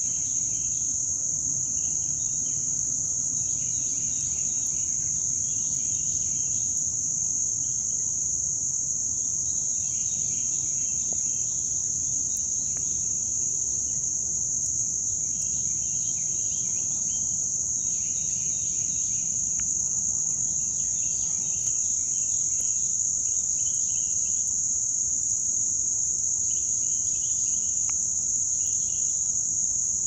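Crickets trilling in a steady, unbroken, high-pitched chorus. Shorter, scratchy bursts of a lower chirring come and go every few seconds.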